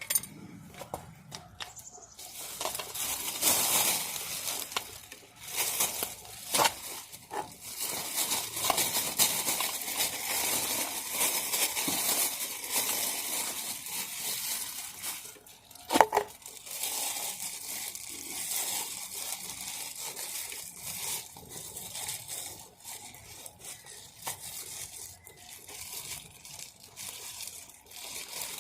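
Rustling, crinkling handling noise with scattered small clicks while trailer wheel-hub dust caps are packed with grease, and one sharp metallic clink about halfway through.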